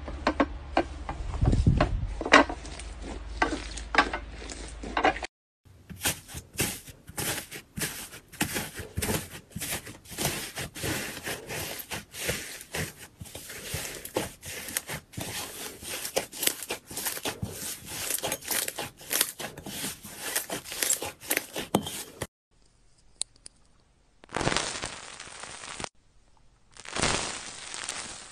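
Hands squishing, kneading and stretching slime, with dense crackling and popping of air pockets and sticky tearing as it pulls apart. A short near-silent gap comes about two-thirds in, then two brief bursts of sticky stretching.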